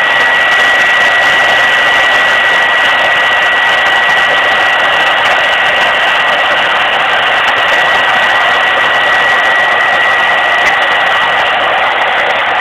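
Hair dryer blowing steadily: a loud, even rushing hiss with a constant high-pitched whine.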